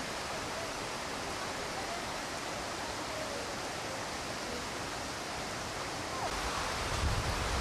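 Steady rush of running water. From about six seconds in, wind rumbles on the microphone.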